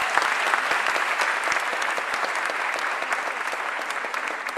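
Large indoor audience applauding, a dense patter of many hands clapping that slowly dies down toward the end.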